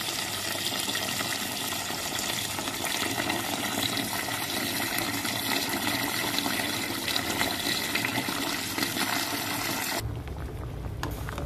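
Tap water running in a steady stream into a stainless steel pot of cut winter melon and dried red dates, filling it with water. About ten seconds in it cuts off abruptly and a low hum takes over.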